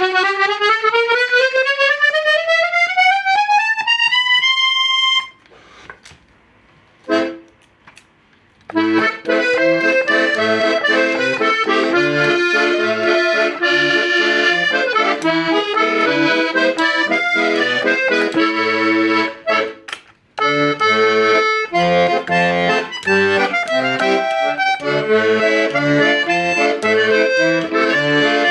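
Hohner Concerto I piano accordion being played: a run rising about two octaves up the treble keys and held, a short pause with a single chord, then a tune with bass notes and chords under the melody, briefly broken off about two-thirds through.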